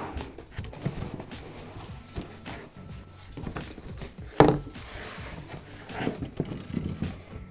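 A large corrugated cardboard shipping box being handled on a table: cardboard rustling and scraping with scattered knocks, and one sharp thump about four and a half seconds in.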